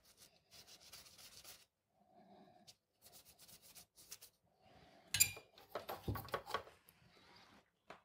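A cloth wiping the aluminium heatsink of a thermoelectric (Peltier) cooler clean, in a run of short, quiet rubbing strokes that get louder about five seconds in.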